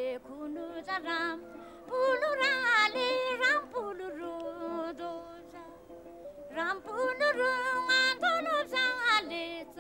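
A solo voice singing a Buddhist devotional song in praise of a reincarnated lama, in long wavering, ornamented phrases with a pause about midway.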